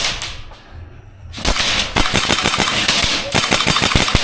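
Airsoft rifle firing full-auto, a rapid string of sharp clicking shots starting about a second and a half in, with a brief pause about three seconds in before another burst.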